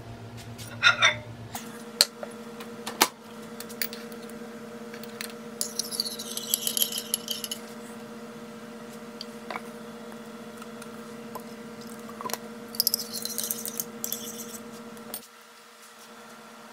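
Microwave oven humming steadily after a few clicks of its door and buttons, cutting off suddenly near the end. A metal spoon clinks against a ceramic coffee mug twice over the hum, stirring coffee.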